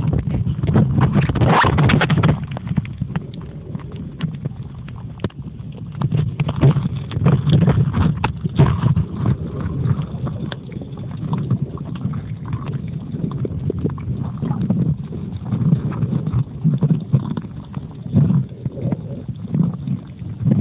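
Underwater noise picked up by a smartphone sealed in a waterproof pouch: a muffled low rumble of moving water that swells and fades, with irregular knocks and rubbing of the pouch against the phone.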